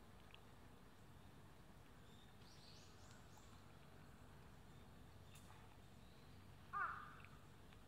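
Quiet outdoor background noise with a few faint high bird chirps, and one short, louder bird call with a falling pitch near the end.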